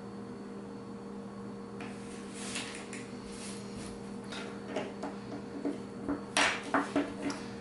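Flush cutters snipping the leads of freshly soldered capacitors off a small circuit board: several short, sharp clicks in the second half, after some light handling of tools and parts on a table. A steady low hum runs underneath.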